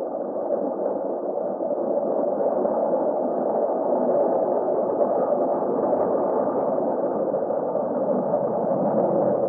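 Space-radio sound effect: a steady, muffled hiss of radio static with nothing bright on top, as if heard through a narrow radio band.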